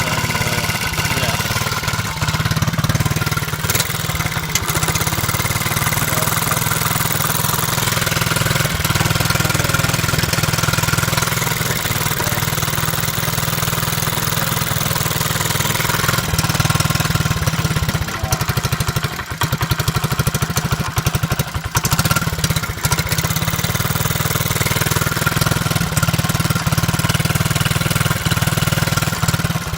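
Honda Z50 minibike's small single-cylinder four-stroke engine idling steadily, with a leak somewhere in its exhaust that the owner is trying to locate.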